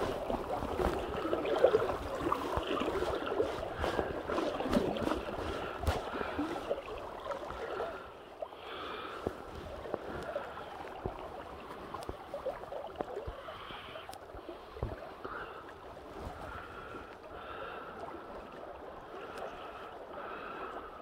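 River water rushing and lapping around a boat, louder for the first eight seconds and then quieter, with a few light knocks.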